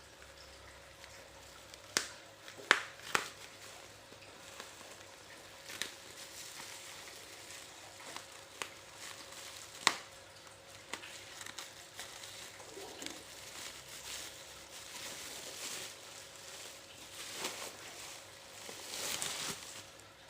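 Packaging being handled and unwrapped: crinkling and rustling with scattered sharp clicks and taps, the loudest a few seconds in.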